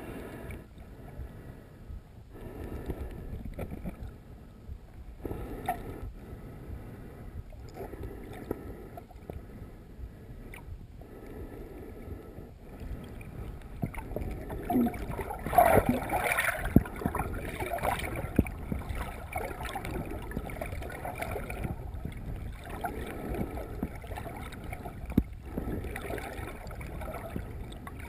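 Muffled underwater sound from a snorkeler's submerged camera: water sloshing and gurgling around the case, swelling every two to three seconds. About halfway through it gets louder for a few seconds, with splashing and clicks.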